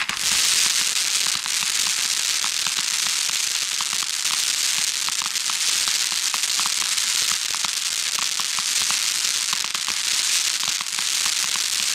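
A 100-shot fireworks battery ('Rock´n Roll') firing comets with crackling tails: a loud, dense, steady crackle with many small pops running through it.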